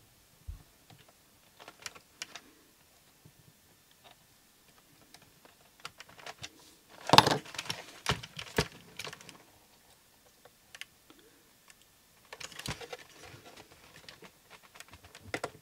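Small plastic clicks and taps from hands and tweezers working a robot vacuum's circuit board and pressing its antenna cable into a retaining slot, with a louder clatter about seven seconds in and a patch of handling noise near the end.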